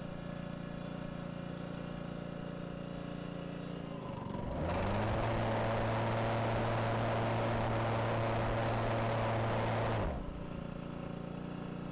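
Honda HRC216 commercial mower's engine running with the blade disengaged. About four seconds in, the blade brake clutch engages and the blade spins up with a loud rush of air. About six seconds later the clutch is released and the brake stops the blade within half a second, leaving the engine running on.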